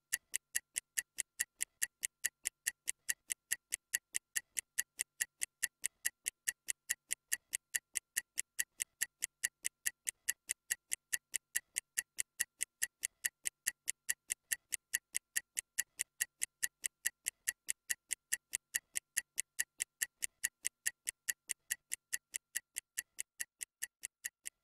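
Stopwatch ticking, about four even ticks a second, marking off a 30-second rest countdown; the ticks fade slightly near the end.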